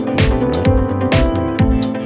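Background music with a steady beat: regular drum hits over sustained held chords.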